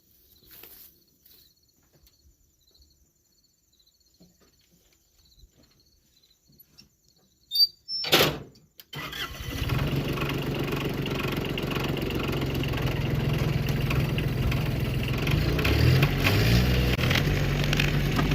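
Skid loader engine cranking briefly and starting about eight seconds in, then running steadily, its pitch rising and falling once or twice near the end. Before it starts, only faint crickets chirping.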